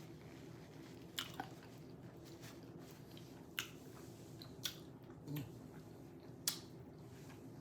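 Close mouth sounds of someone eating a shrimp quesadilla by hand: chewing, with several sharp smacks scattered through.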